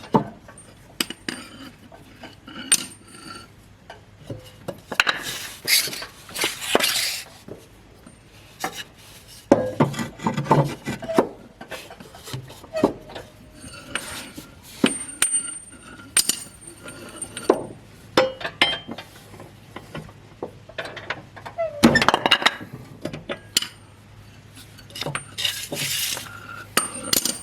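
Hand tools clinking and scraping on metal: a socket and breaker bar knocking against the mower blade and deck, with scattered sharp clinks and a few longer scraping stretches as the blade bolts are worked on.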